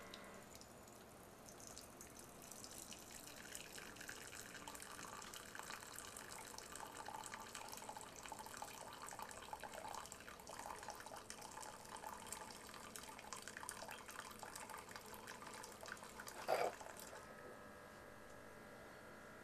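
Keurig K55 coffee brewer dispensing hot water into a ceramic mug: a faint thin stream pouring and splashing. Near the end there is a brief louder burst as the flow stops.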